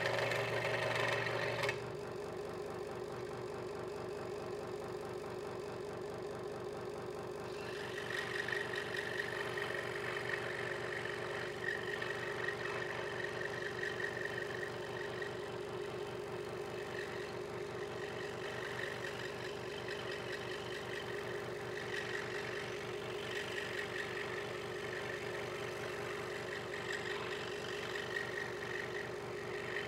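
Hegner Multicut 2S scroll saw running steadily, its blade stroking rapidly up and down as it cuts through a small piece of wood. The cut turns harsher from about eight seconds in.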